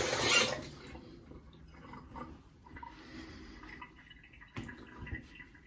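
Sink tap running, shut off about half a second in. Faint drips and small clicks follow.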